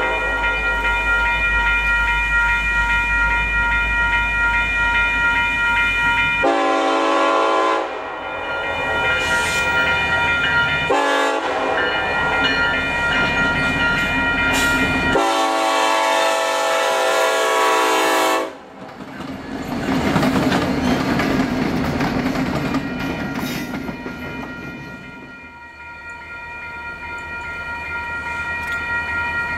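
Norfolk Southern SD70ACE diesel locomotive's air horn sounding a chord in several long blasts at a grade crossing, the last cutting off about 18 seconds in. The locomotives' engines and wheels are then heard passing, and the horn chord comes back faintly near the end.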